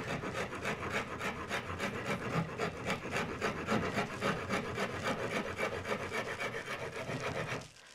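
Surform plane rasping wood off the back of a guitar neck to rough in its contour, in rapid back-and-forth strokes that stop just before the end.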